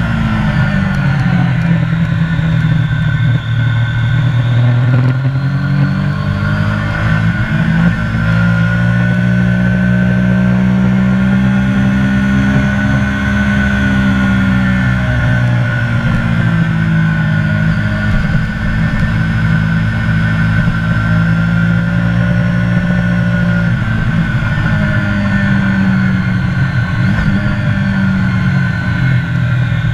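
Triumph motorcycle engine running hard at track speed, its pitch rising and falling several times as the revs change through the corners, with steady wind and road noise at the bike-mounted camera.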